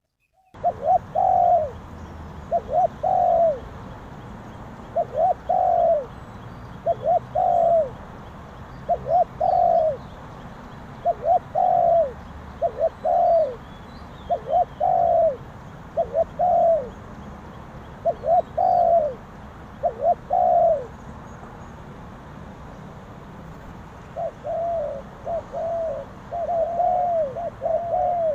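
Spotted dove cooing, a rhythmic phrase of several coos repeated about every two seconds. After a pause of a few seconds near the end, the coos come back quicker and closer together.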